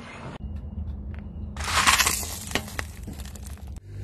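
A car tyre rolling over and crushing something brittle: a burst of crunching and cracking lasting under a second, a little past the middle, over a low steady vehicle rumble.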